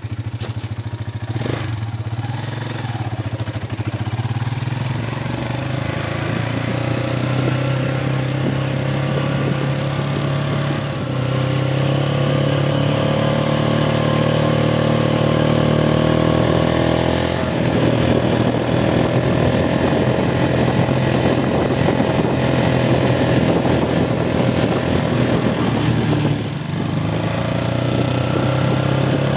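Benelli Motobi 200 EVO's single-cylinder engine running under way, heard from the handlebars. The engine note climbs steadily and drops back a few times, as when shifting up through the gears, and eases off briefly near the end.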